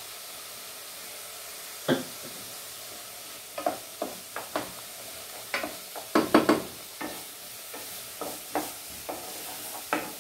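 Chopped carrot, onion and celery sizzling steadily in olive oil in a pot, while a wooden spoon stirs them. The spoon knocks and scrapes against the pot irregularly from about two seconds in, with a quick cluster of knocks around the middle.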